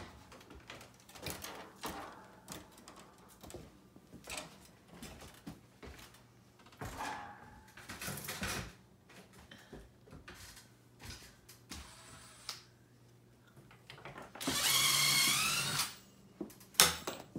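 Scattered knocks and scrapes of someone moving about among attic rafters and onto a ladder. Near the end a power tool runs briefly, a whine about a second and a half long that wavers in pitch.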